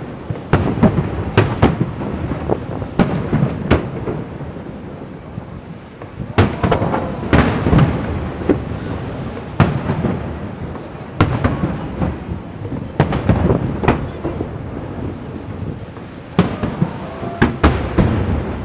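Aerial fireworks shells bursting: a long run of loud, sharp booms, each trailing off in a rumble. They come in quick clusters, with short lulls of lighter crackle between them.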